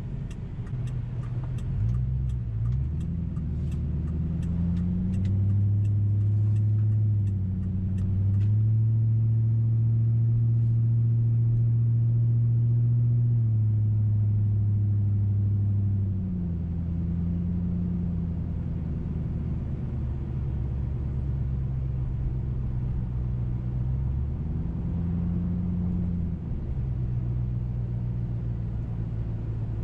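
2005 Mercury Grand Marquis 4.6-litre V8 heard from inside the cabin, running through a muffler-delete exhaust (catalytic converters and H-pipe only). A low drone rises in pitch as the car accelerates, holds while pulling, then drops about sixteen seconds in as the throttle eases. It rises and falls once more a few seconds before the end. A light ticking sounds over the first eight seconds or so.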